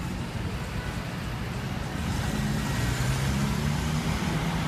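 Street traffic: a motor vehicle's engine running close by, its low hum growing louder from about two seconds in over the general traffic noise.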